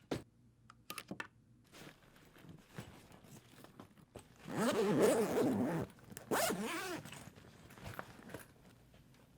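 A zipper pulled in one long stroke about four and a half seconds in, then a second, shorter pull. A few small clicks and knocks come before it.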